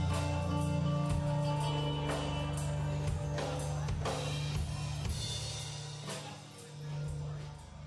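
Live rock-jazz band improvising in G minor: drum kit hits and cymbals over sustained bass and keyboard notes. The sound thins and gets quieter past the middle, with a brief swell near the end.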